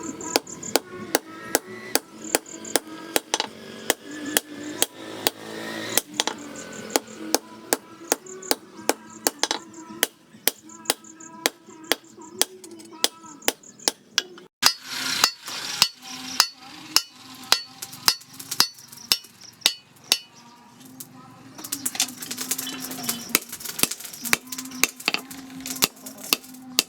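Hammer blows on hot steel on an anvil, forging a knife blank: a steady run of sharp ringing strikes, about two or three a second.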